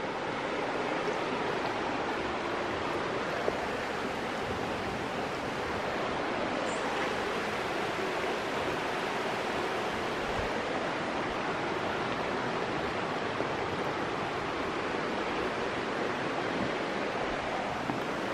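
Shallow creek running over rocks beneath a footbridge: a steady rushing of water.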